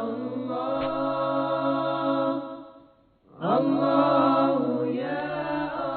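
Wordless a cappella vocal chant of long held notes in two phrases, with a brief break about three seconds in.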